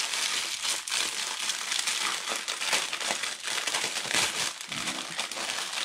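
Plastic packets of diamond-painting drills crinkling and rustling continuously as they are handled and pulled out of their packaging.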